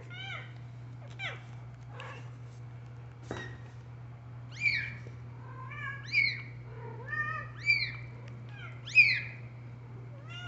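Young kittens mewing: a string of short, high-pitched cries one after another, some overlapping, louder in the second half.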